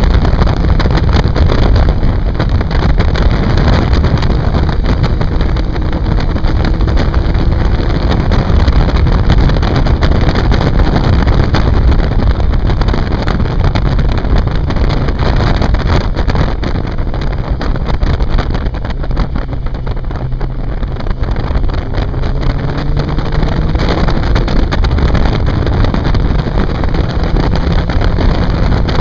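Onboard sound of a 750 cc inline-four sport motorcycle at speed, its engine note rising and falling with the throttle through the bends, under heavy wind noise on the microphone.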